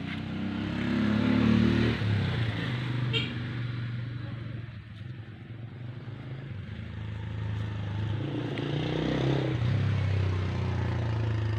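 A motor vehicle engine running steadily, with a low hum that rises in pitch and swells louder about a second in and again near the end.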